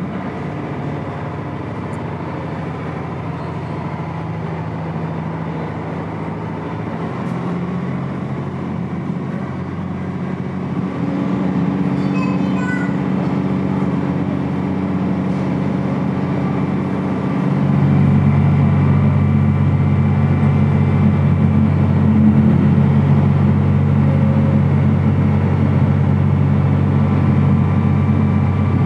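Steady low engine drone of a river water bus, heard from inside its passenger cabin, growing louder about eleven seconds in and again more strongly at about seventeen seconds.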